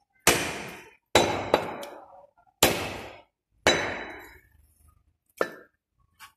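A butcher's cleaver chopping goat leg on a wooden chopping block: six heavy chops at roughly one-second intervals, each followed by a short ringing decay, the last one lighter and shorter.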